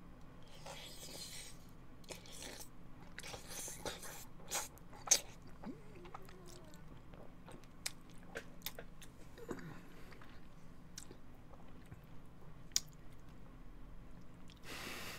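Close-miked eating sounds: a man chewing and slurping spaghetti, with wet mouth clicks and smacks scattered throughout. The loudest is a sharp click about five seconds in.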